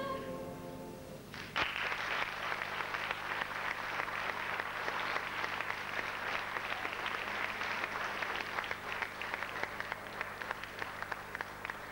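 The last note of the music fades away, and about a second and a half in an audience breaks into sustained applause, a dense patter of many hands clapping.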